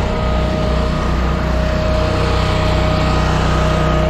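Timberwolf Alpha 6 hydraulic log splitter running steadily, its small gasoline engine humming at an even speed with a steady whine over it.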